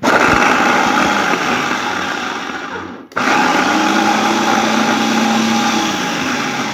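Electric mini food chopper running, its blades whirring as they grind shallots, garlic and galangal in oil into a spice paste. It runs in two goes, stopping briefly about three seconds in and then starting again.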